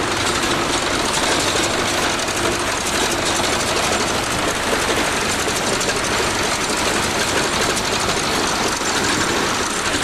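Bulldozer engine running steadily with a fast, even clatter, heard close up.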